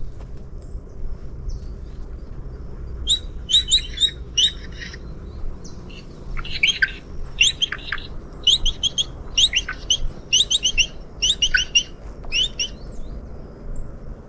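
Birds chirping in quick clusters of short, high notes, starting about three seconds in and repeating roughly once a second until near the end, over a steady low rumble.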